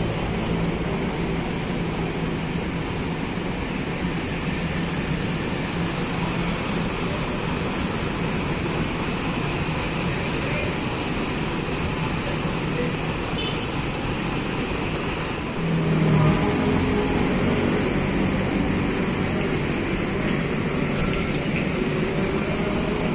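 Diesel engines of large coaches running at idle, a steady low hum with traffic-like noise. About fifteen seconds in the engine sound steps up louder and stays there.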